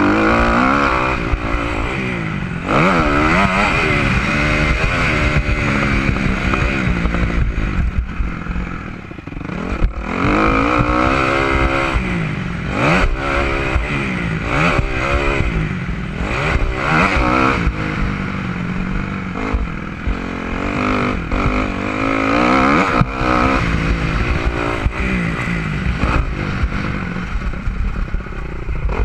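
Motocross dirt bike engine heard close from the rider's helmet, revving hard and easing off again and again as the rider accelerates and backs off around the track. Knocks and clatter are heard as the bike hits the bumps.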